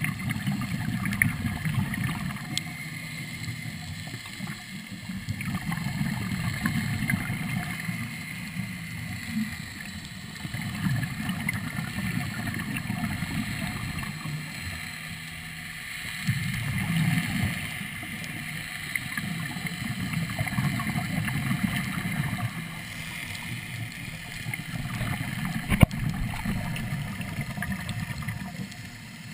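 A diver's exhaled air bubbling out of a Third Lung hookah regulator, heard underwater through the camera housing: low, rumbling bursts of a few seconds each, about every five seconds. One sharp knock near the end.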